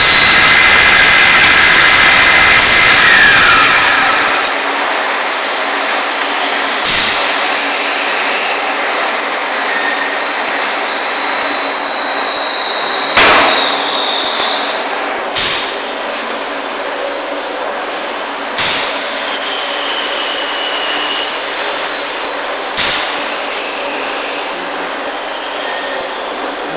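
Turret lathe running with a steady machine hum. A loud rush of noise fills the first four seconds, and after it five sharp knocks come a few seconds apart. A thin high whine comes and goes twice.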